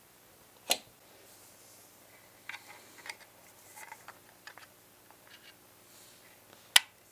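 Small clicks and taps from the plastic and metal parts of a model car being handled and fitted: one sharp click under a second in, a run of lighter clicks in the middle, and another sharp click near the end.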